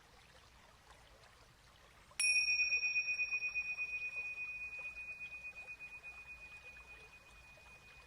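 A small high-pitched meditation chime struck once about two seconds in, ringing with one clear tone that slowly fades away. It is rung as a cue to follow the sound until it can no longer be heard.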